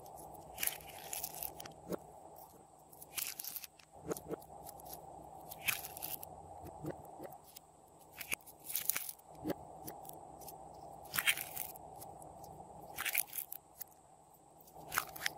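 Hands handling slime, pinching pieces off and pressing them into a small plastic container: sticky crackles and crunches at irregular moments, about one every second or so.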